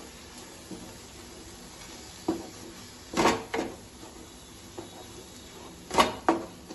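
Wooden spatula stirring chopped greens in a non-stick frying pan, knocking against the pan several times. There are knocks about two, three and three and a half seconds in, and the loudest pair comes about six seconds in.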